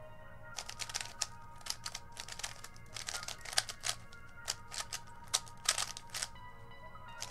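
QiYi Black Mamba 3x3 speed cube being turned rapidly: quick, irregular runs of plastic clicking as the layers turn. Soft background music plays underneath.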